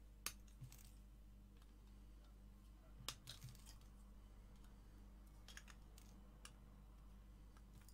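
Side cutters snipping off the excess wire leads of through-hole components on a circuit board: several short, sharp snips, spaced irregularly with quiet gaps between them.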